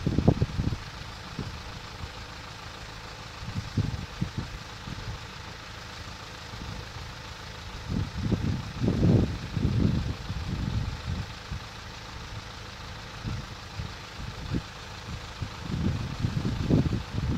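Gusts of wind buffeting the microphone in irregular low rumbles, over a steady background of road vehicles idling at the closed level crossing.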